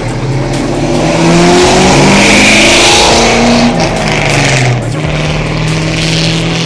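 2002 Ford Mustang GT's 4.6-litre V8, exhaling through a Brentech X-pipe and Flowmaster 10 series mufflers, accelerating hard as it pulls away. The revs climb, drop at an automatic upshift about four seconds in, climb briefly again and drop near five seconds, then settle into a steadier, lower drone as the car moves off.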